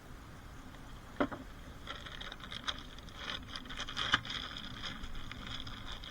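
Hand tools working on car suspension and steering parts: a sharp metallic knock about a second in, then a run of small clicks and scraping with a louder click about four seconds in.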